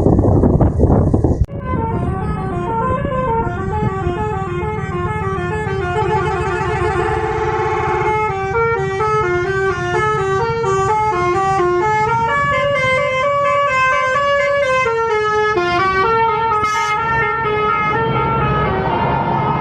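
Basuri 'telolet' bus horn, a multi-trumpet musical air horn, playing a long fast melody of short stepping notes over a low engine hum. The first second and a half is a loud rush of noise that cuts off suddenly.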